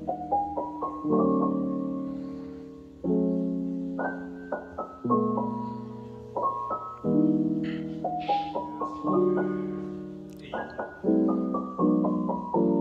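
Background piano music: held chords that fade away after each strike, broken up by quick rising runs of notes.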